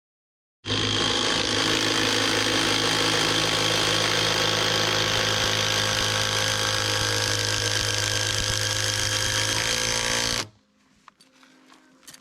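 A power tool running steadily for about ten seconds, starting and stopping abruptly, its pitch rising slightly near the end. A few faint clicks follow.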